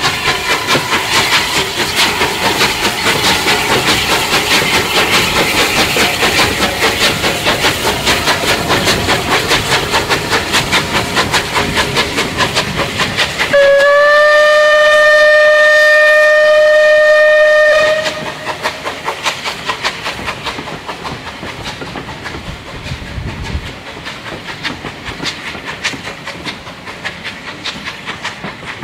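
Bulleid Light Pacific steam locomotive working hard with a steady chuffing exhaust, then one long whistle blast of about four seconds, starting about halfway through and rising slightly in pitch as it starts. After the whistle the coaches roll past with a quieter rhythmic clickety-clack of wheels over rail joints.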